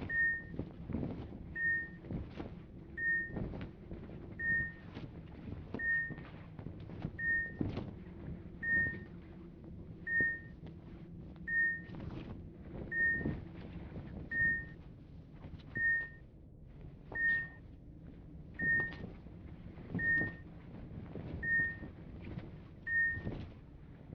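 Hospital medical equipment beeping: one short high beep repeating steadily about every second and a half, over a low steady hum with occasional soft knocks.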